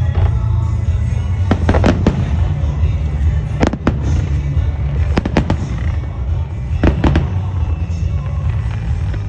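Fireworks going off: a string of sharp bangs, several coming in quick pairs, over a steady low rumble.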